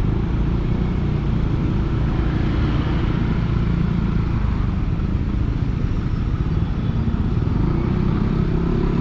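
Yamaha NMAX 155 scooter's single-cylinder engine running through a ROB1 Racing aftermarket exhaust, held at a fairly steady speed while riding, with no sharp revs.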